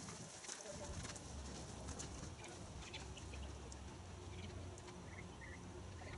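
Faint outdoor ambience with birds calling: low dove-like coos, and a few short, higher chirps about five seconds in.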